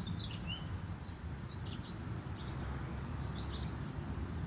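Scattered faint, short bird chirps over a steady low rumble.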